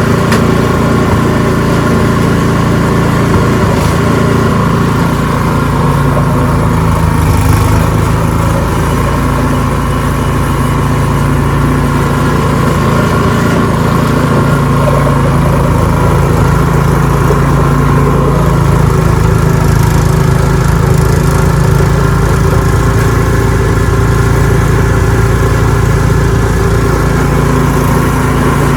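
Ariens 624E two-stage snowblower engine running steadily at working speed while clearing snow.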